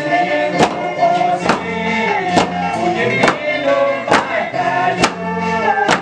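Wooden mallets pounding lengths of jagube (ayahuasca) vine on wooden stumps, striking together about once a second in a steady beat. Voices sing a Santo Daime hymn over the pounding.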